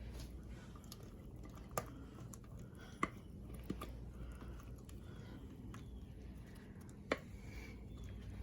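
Thick blueberry batter being scraped and spooned out of a mixing bowl with soft, wet squishing, and four sharp taps of the utensil against the dish.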